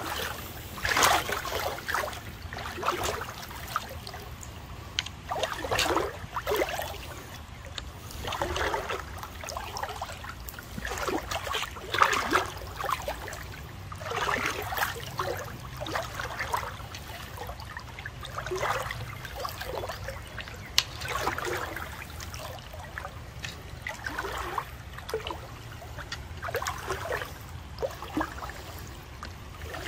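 Footsteps wading through shallow creek water, with a slosh and splash at each step about every two seconds.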